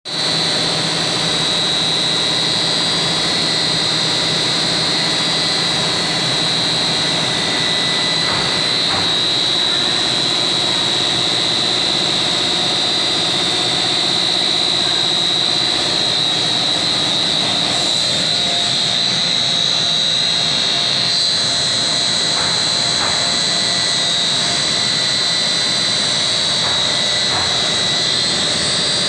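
Blown-film plastic extrusion line running steadily: a constant high-pitched whine over a continuous machine hum.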